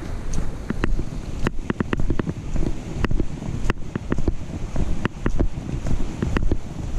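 Walking on a dirt-and-gravel trail: footsteps with many sharp clicks and knocks from a camera clipped to a backpack chest strap jostling at each step, over a steady low rush of noise on the microphone.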